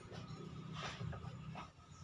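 A wooden cabinet door being swung and handled, giving two light knocks, over a low steady hum.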